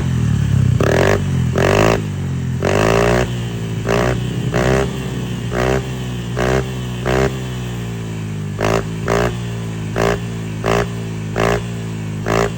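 Honda Click scooter's single-cylinder engine through an aftermarket Apido V5 exhaust, revved hard at full throttle. A long rev comes first, then a couple of big revs, then a run of quick throttle blips about every half second, each rising and falling in pitch.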